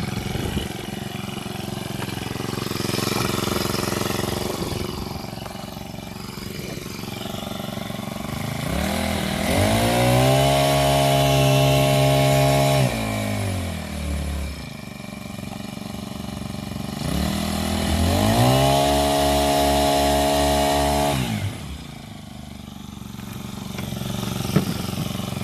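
A 1.5 hp petrol kayak outboard motor runs out of the water at a fast idle and is revved twice. Each time the pitch climbs, holds for about three seconds, then drops back. The propeller now turns with the engine, since a faulty drive section was replaced.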